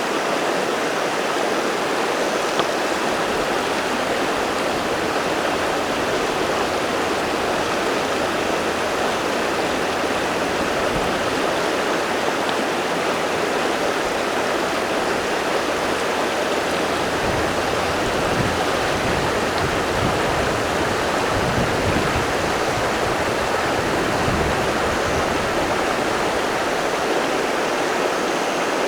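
River water rushing steadily over rocks, an even, unbroken rush, with a few bouts of low rumble around the middle.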